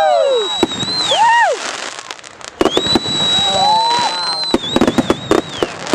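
Consumer fireworks going off: several high whistles that hold steady and then fall in pitch, with rapid clusters of sharp cracks and bangs about halfway through and again near the end.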